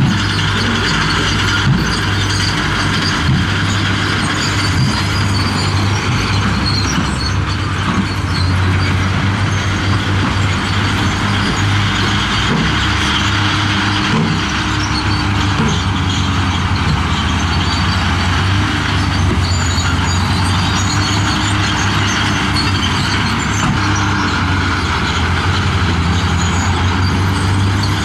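Heavy earthmoving machinery's diesel engine running steadily, with a constant low hum.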